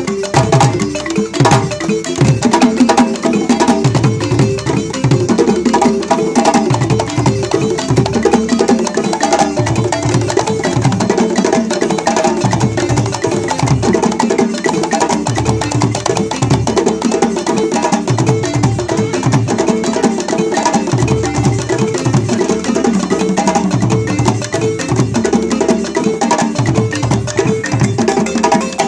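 Balafon playing a fast, busy repeating melody over djembe hand-drum strokes in a West African percussion groove.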